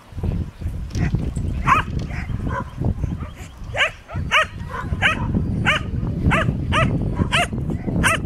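A dog barking again and again while running an agility course: a few scattered barks at first, then a steady string of sharp barks about every half second from the middle on, over a low rumble.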